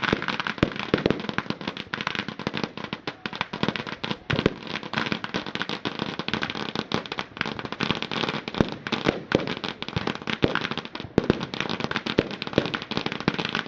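Firework display: a dense, unbroken barrage of crackles and sharp bangs, many going off close together.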